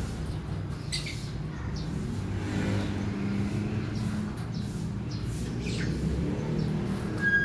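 Lovebirds giving short, sharp chirps every second or two, with a brief whistled note near the end, over a steady low rumble like a running vehicle engine.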